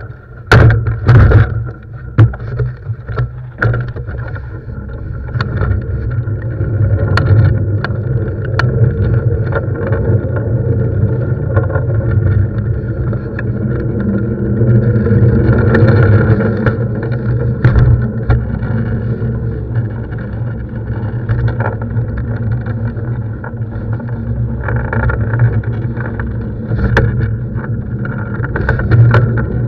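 Longboard wheels rolling over asphalt: a steady rumble that carries through the board and mast, with several sharp clicks over the first few seconds.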